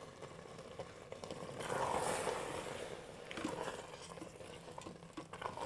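Spatula stirring thick cheesy risotto in the stainless steel inner pot of an electric pressure cooker on its sear setting: soft scraping and mixing with faint sizzling, swelling about two seconds in and again briefly after three seconds.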